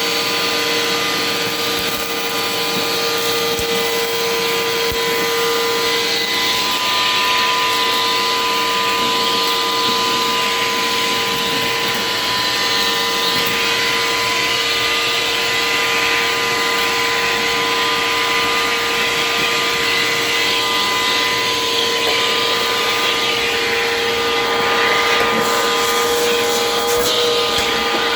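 Vacuum cleaner running steadily, a motor whine over the rush of air, as it sucks lint and dust out of a fridge's clogged vent.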